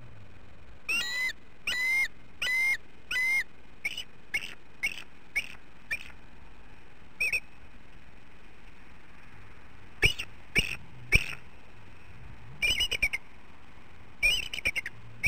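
Bald eagle calling. It gives a run of high, thin whistled notes: four longer slurred notes first, then short chips, a few sharp loud notes, and rapid chittering runs near the end.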